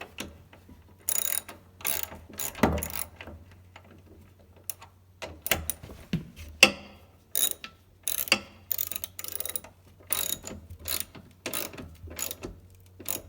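Hand ratchet clicking in repeated short strokes with brief pauses, snugging up the bolts that hold a spare tire carrier to a tailgate.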